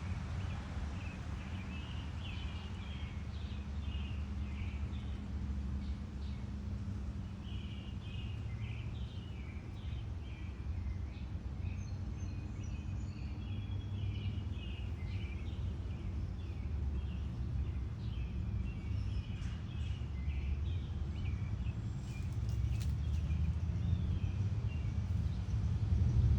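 Backyard birds chirping and singing repeatedly over a steady low rumble of background noise.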